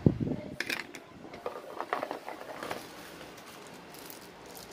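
Small plastic accessory bags crinkling and rustling as they are handled, with light clicks of plastic mounts. It comes as a string of short crackles that thin out after about three seconds, with a few more near the end.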